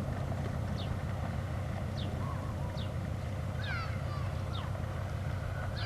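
Diesel locomotive engine idling with a steady low rumble, while a bird chirps over it in short falling notes about once a second, with a quick run of chirps near the middle.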